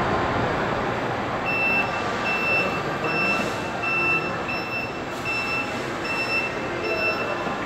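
Reach truck forklift's warning beeper sounding a steady series of short high beeps, about two a second, starting about a second and a half in and stopping near the end, over a steady background hum.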